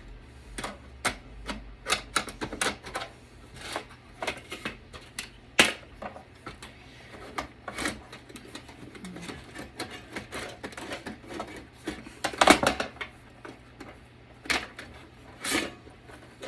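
Irregular clicks, taps and knocks of hard metal and plastic computer parts being handled and worked apart while a desktop PC is dismantled, with a sharper knock about five and a half seconds in and a louder cluster of clatter around twelve seconds in.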